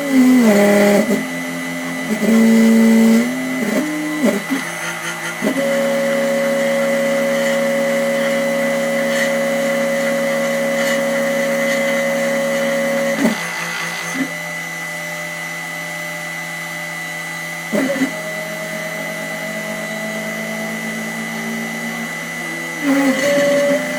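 Stepper motors of a hobby CNC milling machine whining at steady pitches that jump to a new pitch every few seconds as the axes change speed and direction, with short clicks at the changes and one long even move near the middle. A constant thin high tone runs underneath.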